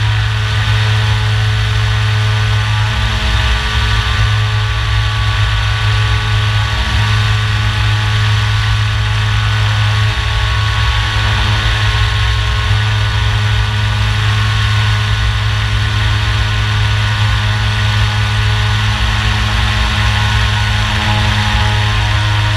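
Brushless electric motor and propeller of a Radian Pro RC glider running steadily under power, a constant drone with wind rush, picked up by a camera mounted on the plane.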